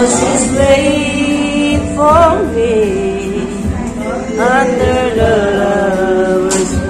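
A man singing karaoke into a handheld microphone over a backing track, holding long notes that waver with vibrato and slide between pitches.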